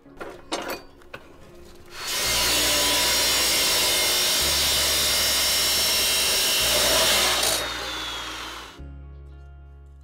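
Abrasive chop saw cutting through steel box-section tube: a few light clicks while the steel is measured, then about two seconds in the saw starts and cuts steadily for some five seconds, and the blade winds down with a falling whine and fades away.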